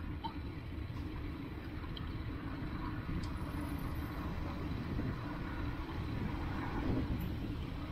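Steady traffic on a busy city road: a continuous low rumble of passing vehicle engines and tyres.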